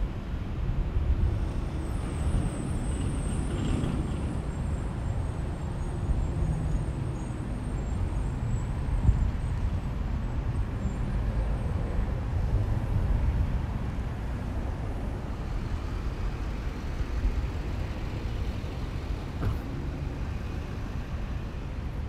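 Outdoor parking-lot ambience: a steady low rumble of road traffic mixed with wind on the microphone. A faint, thin high hiss sits over it through the first half.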